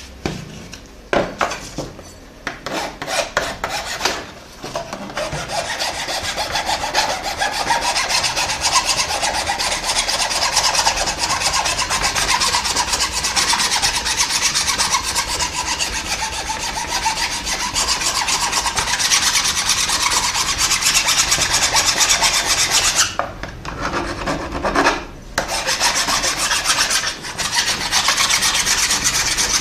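A hand file rasping fast back and forth over a plastic part, wearing down the lumpy cured super glue and baking soda of the repair. It starts as a few separate strokes, then runs on continuously, with brief pauses about 23 and 25 seconds in.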